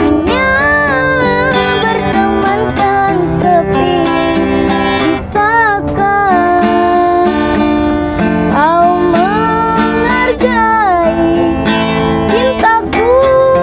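A woman singing a slow pop ballad, her voice wavering with vibrato on held notes, over a strummed acoustic guitar.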